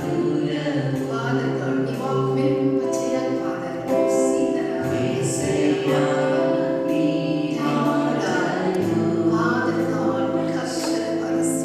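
Worship singing: several voices singing a Telugu worship song together, held notes that shift in pitch every second or so.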